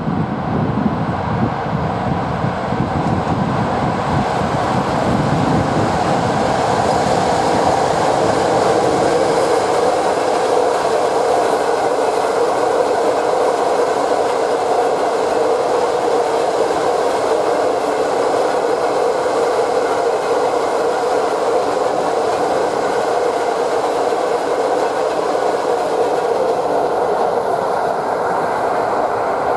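Freight train of self-discharging hopper wagons, hauled by an EU07 electric locomotive, rolling past steadily with a continuous rumble of wheels on rail. There is a deeper rumble for the first few seconds.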